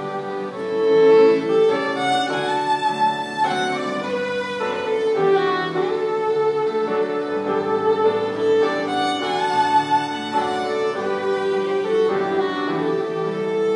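Two fiddles playing a tune together in a duet, mostly long, held bowed notes with a second line sounding beneath the melody.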